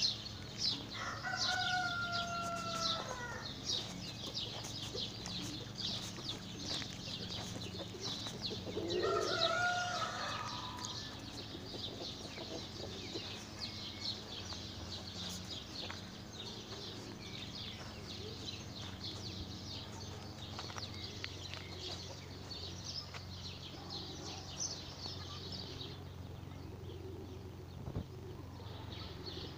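A rooster crowing twice, a long call about a second in and another around nine seconds in, over the continual high twittering of small birds that stops shortly before the end.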